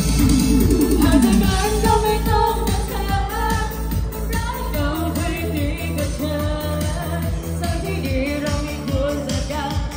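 Lao dance music from a live band over PA speakers: a singer's melody over a steady, loud beat and bass line.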